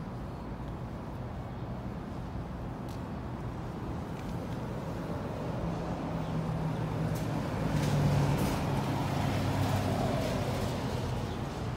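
Yamaha SRX600's air-cooled single-cylinder four-stroke engine idling through a Yoshimura exhaust: a steady low rumble that grows louder for a few seconds in the second half.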